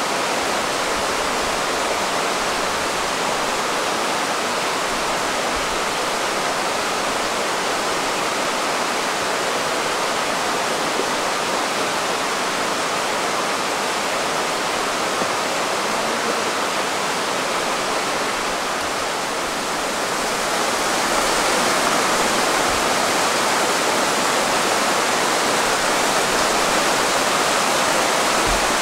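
Rushing water of a fast mountain stream, a steady, loud rush with no pitch, growing slightly louder and brighter about two-thirds of the way through.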